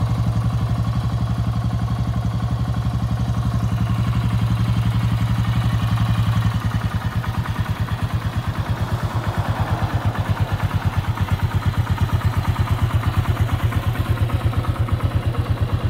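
Yamaha SRX600's single-cylinder four-stroke engine idling through a Yoshimura Thumper exhaust, a steady pulsing beat that grows more distinct about six seconds in.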